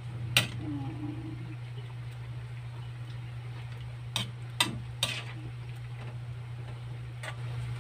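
Metal spatula stirring and scraping in a metal wok of simmering liver and gizzard adobo, with a few sharp clinks about half a second in and again around four to five seconds in, over a steady low hum.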